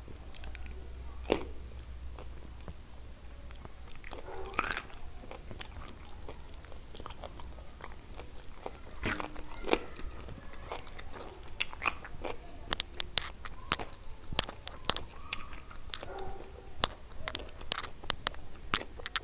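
Close-miked eating of roasted chicken wings: wet chewing with sharp crisp crunches, which come thick and fast in the second half.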